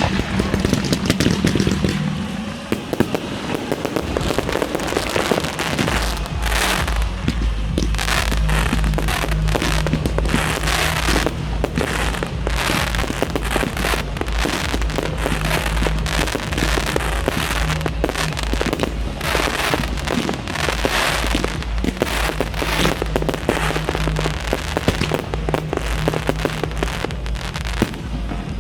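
Fireworks bursting and crackling in quick succession over pop music played loud for the display, whose bass line comes in about six seconds in.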